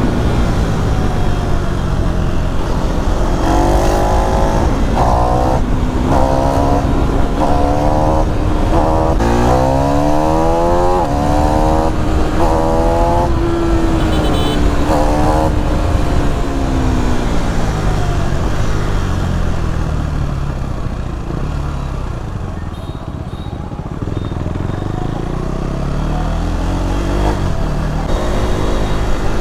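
KTM Duke 390 single-cylinder engine accelerating hard through the gears: the revs climb and drop back with each quick upshift, then hold high. The revs fall away as the bike slows about two-thirds of the way through, and climb again near the end, over steady wind rush.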